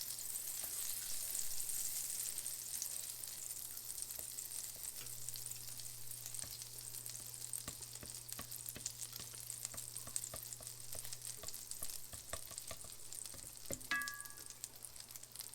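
Olive oil and butter sizzling in a hot frying pan as the butter melts: a steady hiss with scattered small crackles that eases off slightly.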